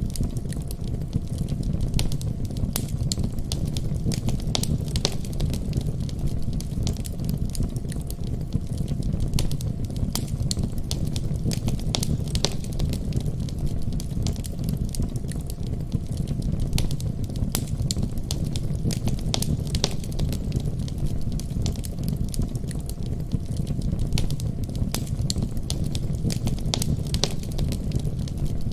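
Wood fire in a fireplace crackling, with frequent sharp pops over a steady low rumble.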